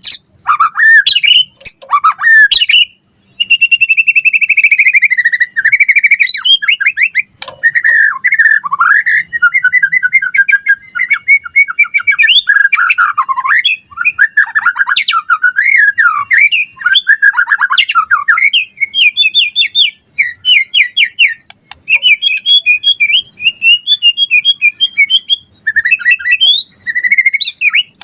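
White-rumped shama (murai batu) singing a long, varied song of quick whistled phrases, glides and trills, almost without a break.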